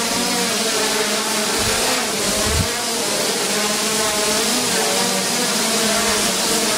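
Hubsan H501S quadcopter's four brushless motors and propellers whining steadily in a low hover, the pitch wavering as the throttle shifts, with a single thump about two and a half seconds in.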